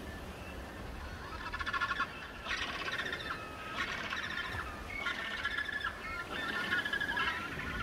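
A crested penguin colony calling: many birds giving loud, rapidly pulsed calls that overlap one another, starting about a second in, over a low rumble of wind and surf.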